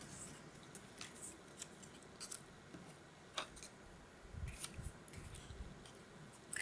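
Faint handling sounds of small paper cut-outs on a craft table: scattered light clicks and rustles, with one sharper click about three and a half seconds in.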